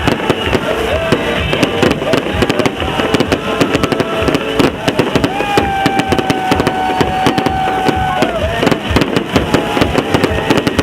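Fireworks going off: a dense, continuous rattle of rapid bangs and crackles. In the middle, a steady tone is held for about three seconds before it drops away.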